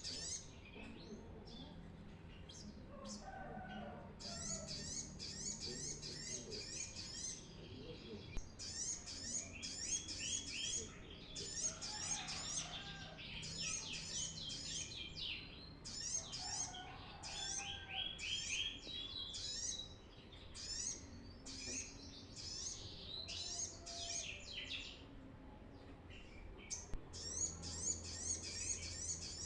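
Brown-throated sunbird (kolibri kelapa) singing actively: high, rapid runs of quick chirping notes, repeated in bursts every second or two with short pauses between.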